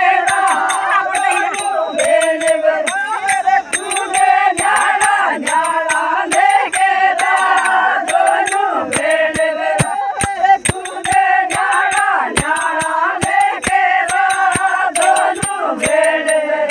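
A group of women singing a Meenawati folk song (a 'lamba geet') with steady hand claps keeping the beat.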